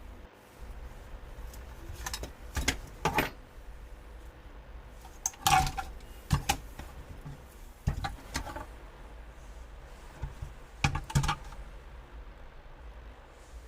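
Scattered clicks and knocks of hard plastic-cased engine control units being handled and set down on a workbench, over a low steady hum.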